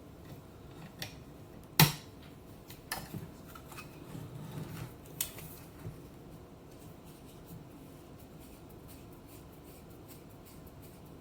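Small handling clicks and knocks of a screwdriver and metal telephone parts during reassembly, with one sharp click about two seconds in, a few lighter taps and a brief rubbing, then only faint room tone.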